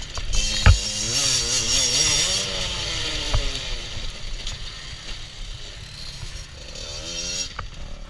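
Beta 50cc two-stroke enduro bike engine revving up and down while riding a dirt trail. A sharp knock about a second in and another about three seconds in are the loudest moments.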